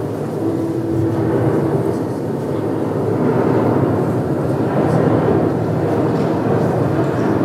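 Field recording of strong wind used as a soundtrack: a steady, dense low rushing noise with faint held tones inside it.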